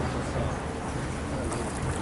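A steady, low engine drone, with people talking faintly over it.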